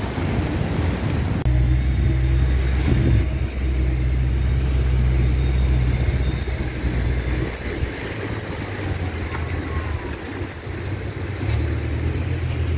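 Wind buffeting the microphone as a heavy, steady rumble, over the wash of surf breaking on rocks.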